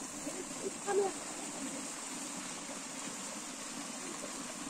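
Water rushing steadily down a narrow stone-lined irrigation channel, with one brief, short sound about a second in.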